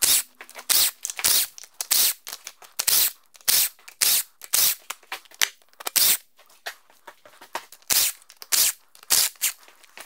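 Cordless impact driver hammering in many short bursts, two or three a second, as it loosens bolts on top of an engine.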